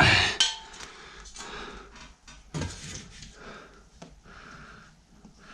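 Handling noise while measuring and marking: a loud clatter at the start, then light scattered clicks and rustles, with one sharper knock about two and a half seconds in.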